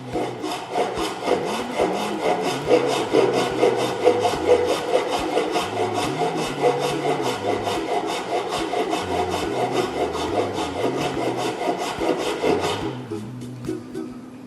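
Hand saw cutting into a small piece of wood, a steady run of rasping back-and-forth strokes that stops near the end.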